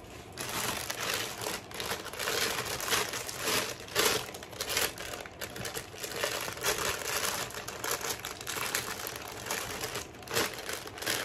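Thin clear plastic packaging bag crinkling unevenly as hands fumble with it, trying to get it open.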